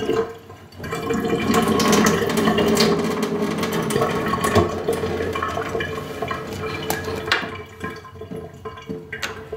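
Water running from a kitchen filter faucet and being poured into a small measuring glass, a steady splashing wash that dies away after about seven seconds. A couple of light clicks follow near the end.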